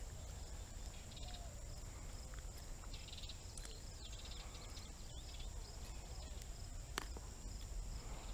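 Outdoor ambience of a steady high insect drone with a few short chirping calls over a low rumble, and a single sharp click about seven seconds in.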